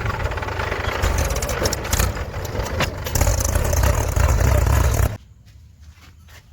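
Diesel engine of a backhoe or tractor running loud and close, with rattling and clanking over a deep rumble, that cuts off suddenly about five seconds in. After it come only faint, scattered knocks.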